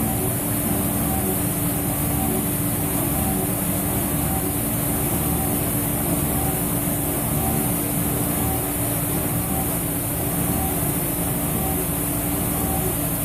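Mori Seiki NH5000 DCG horizontal machining center waveform-milling P110 steel with a 1/2-inch 5-flute carbide endmill: a steady machining sound with a constant tone and a high hiss.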